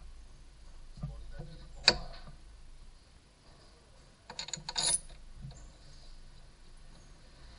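Small metal clicks and clinks as the crankshaft pulley's centre bolt and washer are handled and started by hand into the pulley. There is one sharp click about two seconds in and a quick cluster of clinks a little before the five-second mark.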